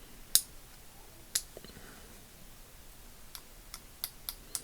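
Sharp metallic clicks and taps of a magnet and small steel parts against a rusted ratchet head as the magnet is worked to draw out the pawl mechanism. Two single clicks, then a quicker run of about five near the end.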